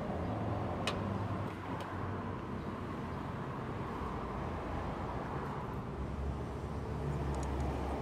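Steady low outdoor rumble, with one sharp click about a second in.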